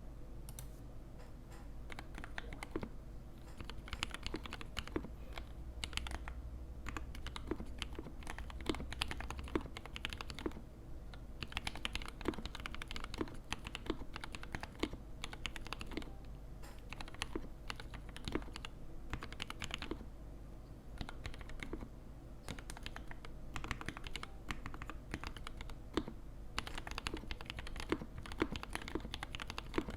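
Continuous typing on a custom mechanical keyboard with a brass plate, mixed switches and GMK keycaps: fast, irregular key clacks with brief pauses and occasional deeper, louder strokes, over a faint steady low hum.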